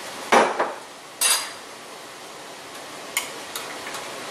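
Kitchenware being handled on a counter: a few sharp clinks and knocks of dishes and utensils, the loudest about a third of a second in and again just after a second, then two lighter taps near the end.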